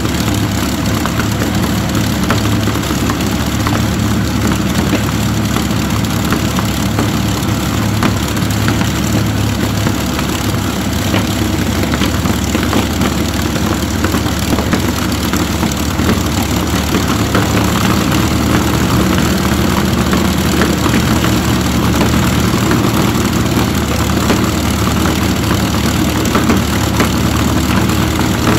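Rolls-Royce Merlin V12 aero engine running steadily on a test-stand trailer, its propeller turning. It gets slightly louder about two-thirds of the way in.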